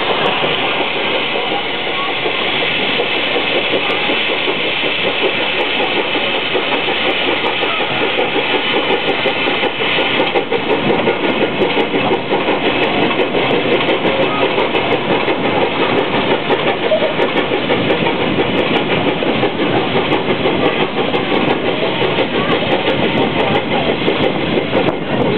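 Narrow-gauge coal-fired steam locomotive running with its passenger train: steady exhaust and running noise, wheels clattering over the rail joints, and a hiss of steam jetting from the locomotive's side.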